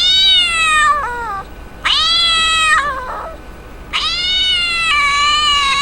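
Cat-meow ringtone playing from a phone's speaker: three long, drawn-out meows, the third the longest.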